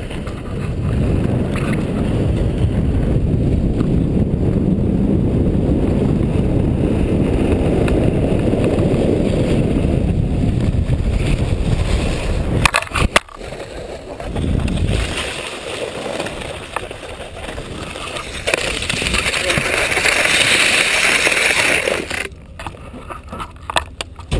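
Wind rushing over an action camera's microphone, with skis or a board sliding fast over packed snow during a downhill run. A little past halfway a cluster of sharp knocks cuts the rush off. After that it is quieter, with a stretch of hissing and a few more knocks and handling noises near the end.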